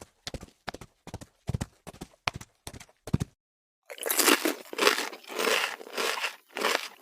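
Deer hoofsteps sound effect: sharp hoof clops about four a second for about three seconds. After a brief pause they give way to slower, longer crunching steps.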